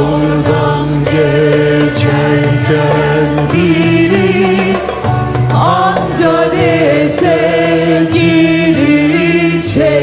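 Mixed choir of men and women singing a Turkish song, with a woman and two men singing lead into microphones.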